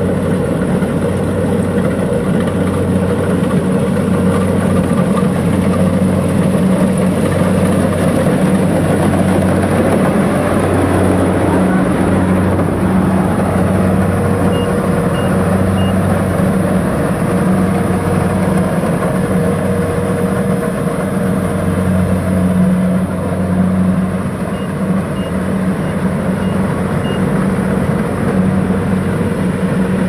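Kubota DC-70 rice combine harvester running steadily under load while harvesting rice, a constant engine drone. Faint short high beeps come in two brief series, about halfway through and near the end.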